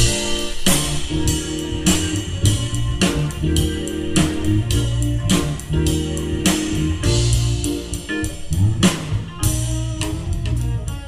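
Live band playing an instrumental: electric guitar, electric bass, keyboards and drum kit, with the drums keeping a steady beat.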